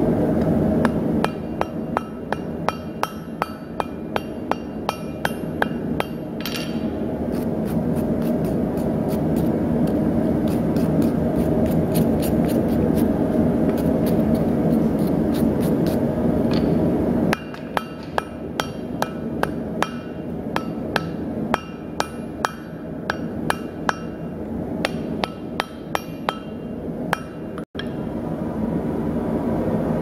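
Hand hammer striking a red-hot padlock on a steel anvil, rapid blows of about three a second, each with a short metallic ring, as the lock is forged down into a damascus billet. A steady roar runs underneath.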